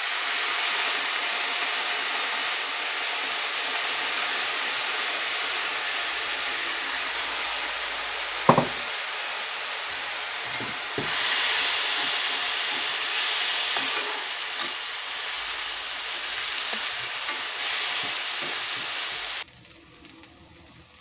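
Soaked, drained basmati rice and vegetables sizzling loudly in hot oil in a karahi as the rice is fried before the water goes in, with a sharp knock against the pan partway through and a few lighter knocks. The sizzle cuts off suddenly near the end.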